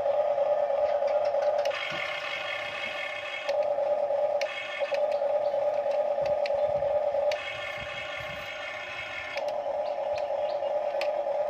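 Electric gear motors of a radio-controlled toy excavator whining steadily as its boom, arm and tracks are driven. The whine switches abruptly back and forth between a lower, stronger tone and a higher, thinner one several times as different functions are worked.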